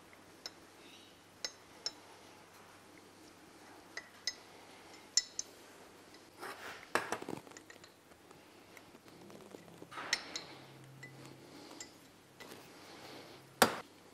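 Small steel measuring tools clicking and clinking: a telescoping gauge being set inside a connecting rod's big-end bore and handled against a micrometer to measure the rod bore size. Scattered sharp clinks with some handling rustle between them, the loudest clink near the end.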